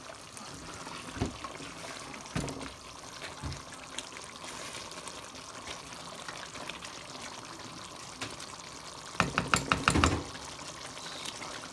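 Chicken karahi sizzling in oil in the karahi, a steady hiss, with a few single knocks early on. About nine seconds in comes a quick run of about six sharp knocks.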